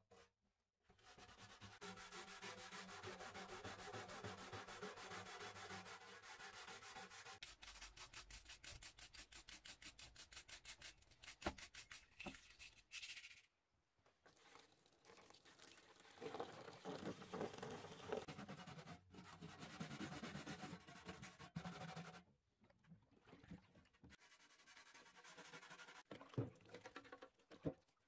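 Faint scrubbing of a brush against a metal paraffin can, working softened paint and stripper off the surface in quick rhythmic scratching strokes. The strokes speed up to about five a second, pause briefly, then a second bout of scrubbing follows.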